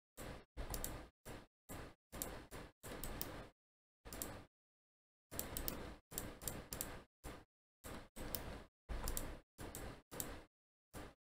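Computer mouse and keyboard clicks from work at the desk, coming in short clusters of sharp ticks about fifteen times, with dead silence between each.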